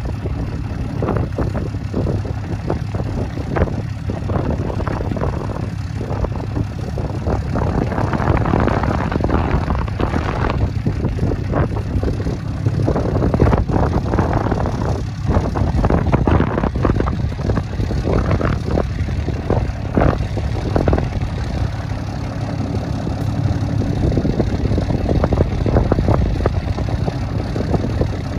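Strong wind, about 30 miles an hour, buffeting the microphone: a loud, rough rumble that rises and falls in gusts.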